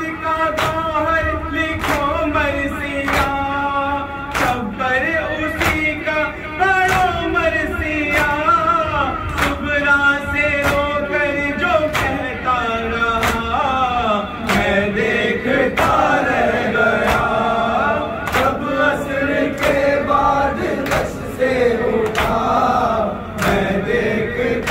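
Noha sung by a male reciter over a microphone, with mourners' chest-beating (matam) slaps keeping a steady beat about three times every two seconds. About halfway through, the crowd of mourners joins in chanting the refrain.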